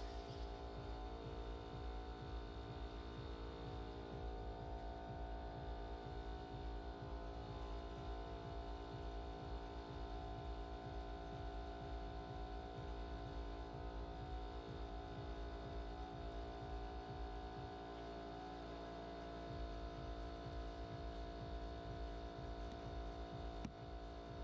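Steady machine hum made of several constant tones over a fluttering low rumble, from workshop machinery running.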